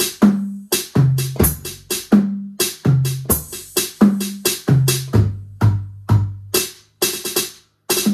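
Electronic drum kit sounding one of its electronic kits: sharp, rhythmic hits with pitched, synth-like toms that step down in pitch over and over, mixed with cymbal hits. There is a short break a little after seven seconds before it picks up again.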